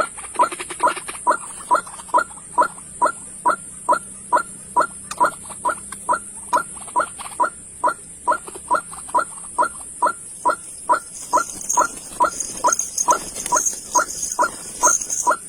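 A bird call of short falling notes repeated steadily, about three a second, over a steady high-pitched buzz.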